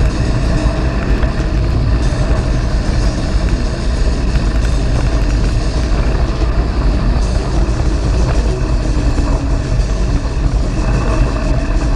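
Steady rush of riding noise from a 2006 Gary Fisher Mullet mountain bike on a gravel trail: tyres rolling and crunching over loose gravel, with heavy wind rumble on the action camera's microphone.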